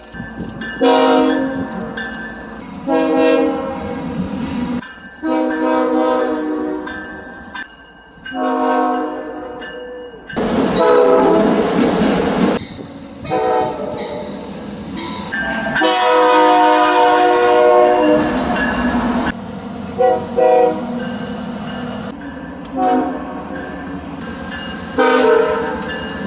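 Train horns sounding a multi-note chord in a string of blasts, some long and some short, with the loud noise of a passing train mixed in around the middle.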